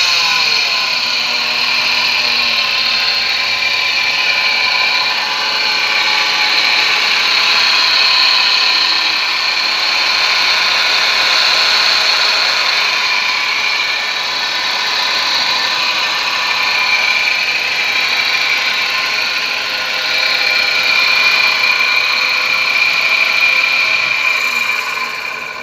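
Nissan Serena QR20DE four-cylinder engine idling with a loud, steady high-pitched whine over it, an abnormal noise that the owner traces to the alternator. The whine falls in pitch and dies away as the engine is switched off near the end.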